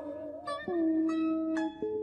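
Plucked string instrument playing a short phrase of about five notes, some of them wavering or bending in pitch, as the instrumental accompaniment to Vietnamese chanted poetry (ngâm thơ).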